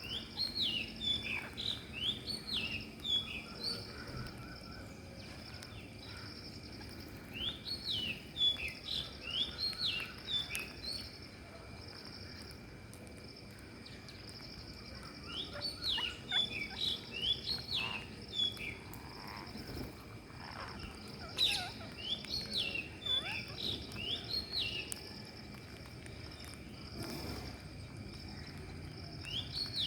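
Rose-ringed parakeets calling: bouts of shrill, quickly repeated notes, four bouts a few seconds apart, with another starting near the end.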